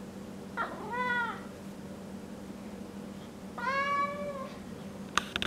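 A domestic cat meowing twice: a short call about a second in, then a longer one a few seconds later, each rising and then falling in pitch. A couple of sharp clicks just before the end.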